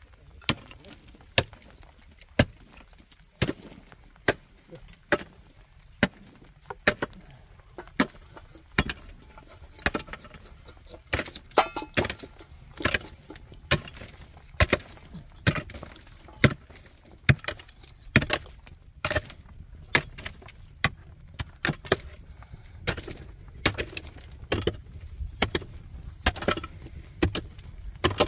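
Steady series of sharp blows, a hand tool striking a hard material over and over: about one blow a second at first, coming quicker with smaller knocks in between from about halfway.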